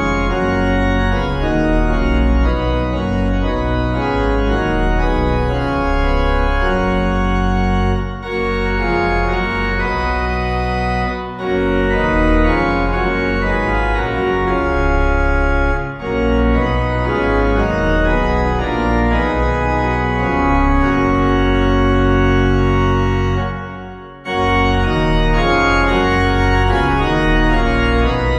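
Organ playing a slow piece in sustained chords, phrase by phrase, with a short break about three-quarters of the way through before the music resumes.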